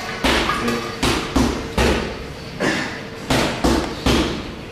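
A rapid run of heavy thuds from workout impacts, two to three a second, each with a deep low thump and a short decay.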